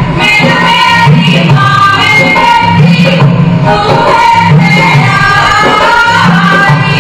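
Women singing a Punjabi giddha folk song over a low drum beat that repeats about every one and a half seconds.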